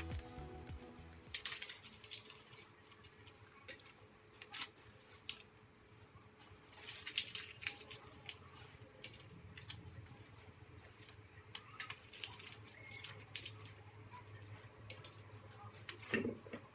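Faint rustling and clicking of small paper pieces being handled and picked apart by hand, in scattered bursts. Near the end a plastic blender lid is set onto the glass blender jar with a short knock.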